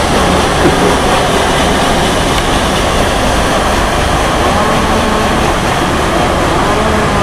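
Steady, loud rushing rumble of the 1886 paddle steamer Pillnitz passing close by, its paddle wheels churning the river water.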